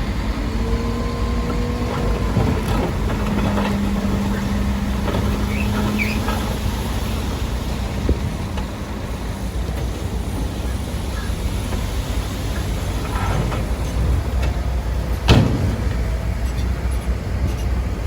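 Heavy diesel construction machinery running steadily with a low rumble, with a single sharp clank about fifteen seconds in.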